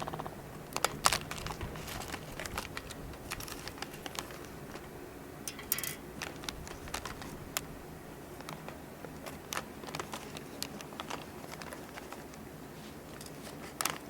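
Irregular sharp clicks and light knocks, loudest about a second in and again near the end, with a brief hiss about six seconds in, over a low steady background.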